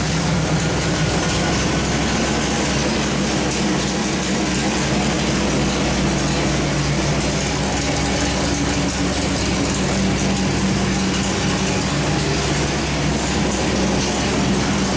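383 cubic-inch small-block Chevy stroker V8 on an engine dyno, with a Holley 850 four-barrel carburetor and hydraulic roller cam, running steadily at a constant speed with no revving.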